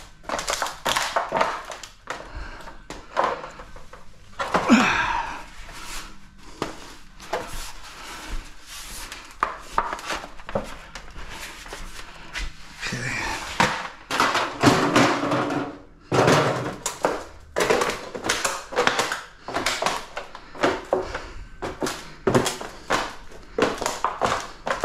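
Scrap aluminum and other clutter being picked up, moved and set down: a long string of irregular thunks, clanks and knocks, with a longer scrape about five seconds in.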